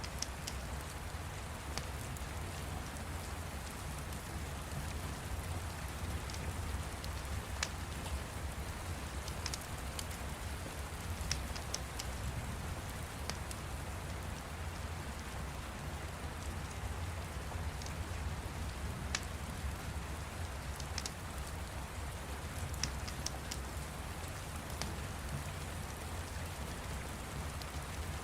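Steady rain falling with a deep low rumble under it, and scattered sharp crackles from a fire every few seconds.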